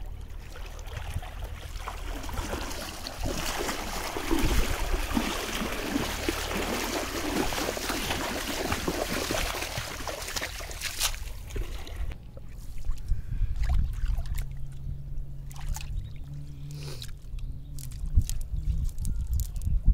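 Water splashing and sloshing as a cast net is hauled through shallow water. About twelve seconds in the splashing stops, leaving a low rumble and scattered clicks as the wet net is handled.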